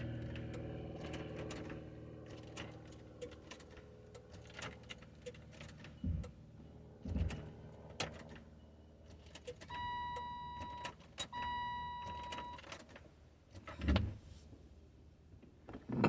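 Inside a car that won't start: a low hum fades out over the first few seconds, then a few dull knocks, and near the middle two steady electronic beeps about a second long each from the car's warning chime.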